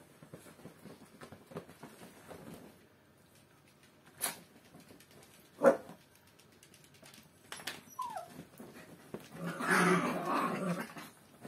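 Miniature pinschers playing: faint rustling at first, a sharp yip near the middle, a short falling whine, then a burst of growling about two seconds from the end.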